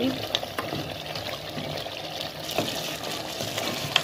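Wooden spoon stirring a thick chicken and potato stew in a metal pot, with scattered scrapes and clicks of the spoon against the pot and one sharper tap near the end.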